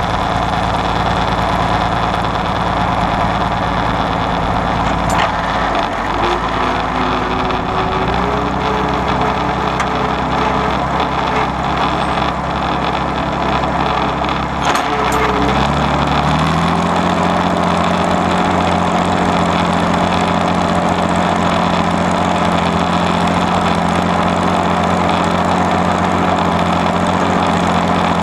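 Allis-Chalmers WD45 diesel tractor's six-cylinder engine running steadily while pulling a rollover plow. About eight seconds in its note shifts, and after a single knock near fifteen seconds the engine note rises and holds higher as the plow works the soil.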